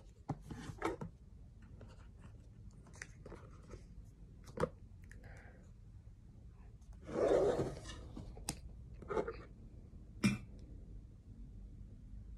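Unboxing handling sounds: scattered clicks and crackles of the phone's box and packaging being handled, with one louder rustle lasting about a second, roughly seven seconds in.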